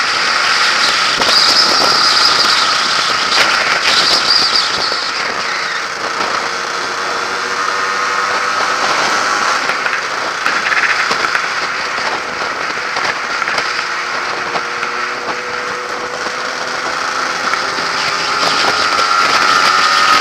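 Yamaha RXS100's small two-stroke single-cylinder engine running under way, with wind and road noise over it. The engine note climbs near the end as the bike accelerates.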